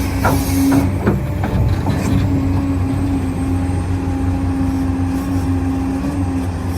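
Electric motors and gearing of a 1:14 scale RC construction machine whining steadily, with a cluster of sharp clicks and rattles in the first couple of seconds.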